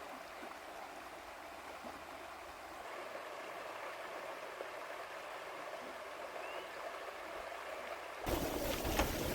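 River water flowing steadily, an even rushing hiss. Near the end a louder rushing noise cuts in suddenly.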